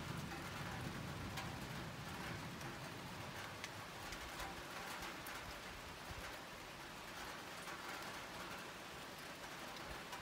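Steady rain falling, with scattered sharper drops hitting nearby, as the tail of a low thunder rumble dies away about a second in.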